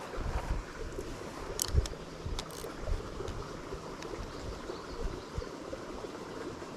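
Water running steadily over a small spillway waterfall, with low wind gusts on the microphone in the first two seconds and a couple of short high clicks.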